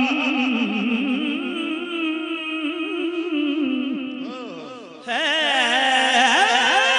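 Male voice singing a Punjabi devotional song in praise of Ali, with long ornamented notes that waver and slowly fade, then a louder sung phrase breaks in suddenly about five seconds in.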